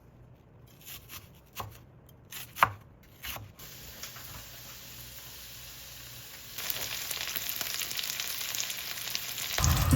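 A few sharp clatters of cookware, then a frying pan sizzling steadily. The sizzle gets louder about two-thirds of the way through.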